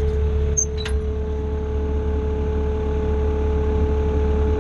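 Skid steer engine running steadily with a constant hum, as the loader lowers the front end of the sawmill; a couple of faint light clicks come about a second in.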